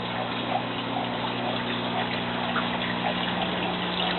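Water running and trickling through an aquaponics system, with the steady hum of its pump underneath.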